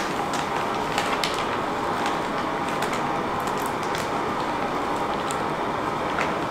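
Canister camp stove burner hissing steadily under a pan of boiling water, with scattered clicks and crinkles as a plastic bag of ravioli is tipped into the pan.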